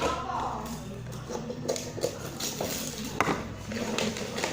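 Background music and voices, with a few sharp taps and clicks from handling, the loudest about three seconds in.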